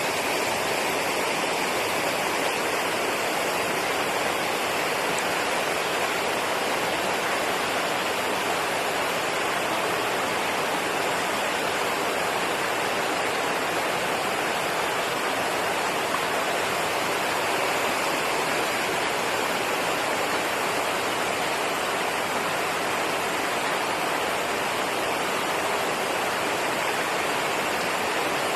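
Flowing water rushing steadily, an even unbroken sound with no pauses or events.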